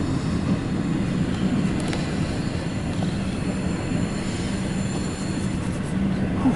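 CSX intermodal freight train's loaded flatcars rolling past: a steady rumble of wheels on rail, heard through the windshield of a car.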